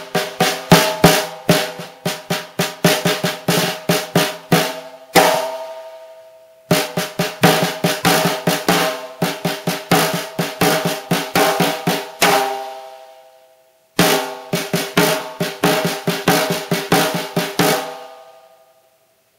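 A 14-inch custom-made wooden snare drum played in three quick runs of strokes and rolls. Each run ends on a hit left to ring out, and the last one dies away near the end.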